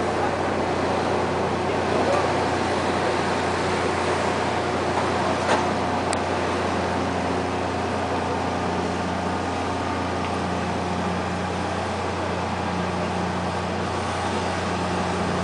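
A fishing boat's engine idling with a steady low drone, a higher hum joining about seven seconds in. A single sharp click sounds about five and a half seconds in.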